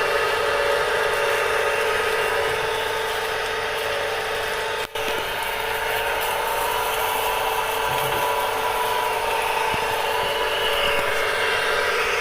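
Pressure washer running steadily as it sprays the motorbike, a constant motor tone under a loud hiss of spray. It cuts out for an instant about five seconds in.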